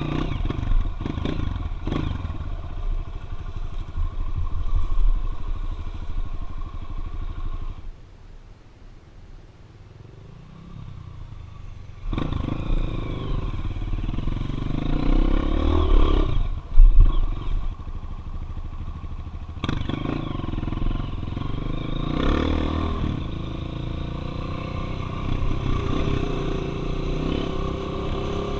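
Trail motorcycle engine running and being revved on a dirt trail. It drops much quieter for a few seconds about a third of the way in, then comes back loud with repeated rises and falls in pitch, loudest a little past the middle.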